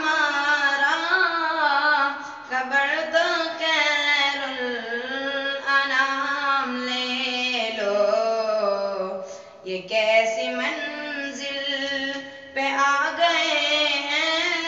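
A boy's voice singing an Urdu naat unaccompanied, in long, wavering held notes, with a short break about ten seconds in.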